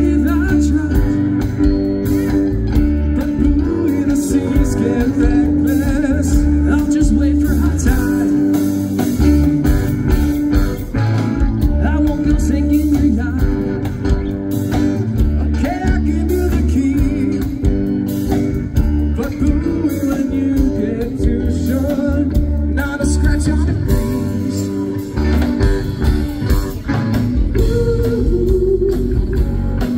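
Live band playing a rock song on electric and acoustic guitars, with singing over it.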